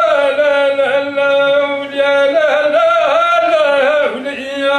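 A man singing a long, drawn-out wordless line in the style of traditional Moroccan sung poetry, holding steady notes that waver and bend in places.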